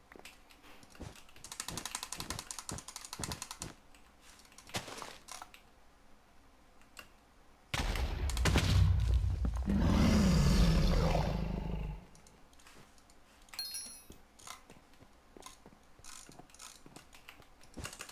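Computer keyboard keys clicking: scattered single presses, with a fast run of rapid clicking a second or two in. About eight seconds in, a loud low rumbling noise lasts about four seconds and stops suddenly, before sparse key clicks resume.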